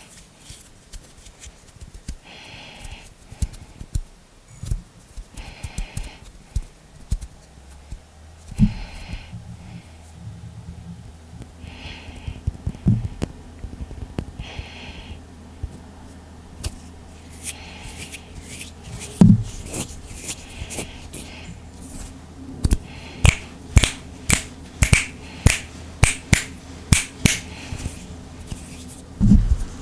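Close-miked hand and finger sounds for ASMR: soft rubbing in the first half, then a quick run of sharp finger snaps and clicks, about two a second, over the last third.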